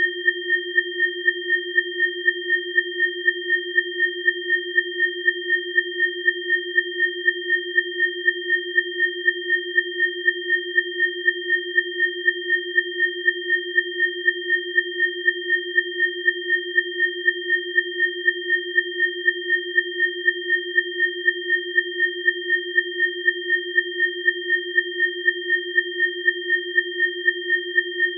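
Electronically generated sine tones of a neowake biofrequency session: three pure tones, low, middle and high, held at constant pitch together, with the loudness pulsing regularly about three times a second.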